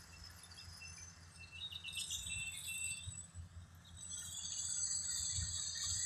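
Faint high chirping of birds, with a low rumble of the phone being handled.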